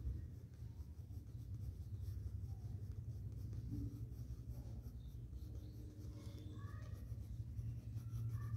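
Orange Doms coloured pencil shading lightly on drawing paper: a soft, steady scratching of the pencil lead, over a low steady hum.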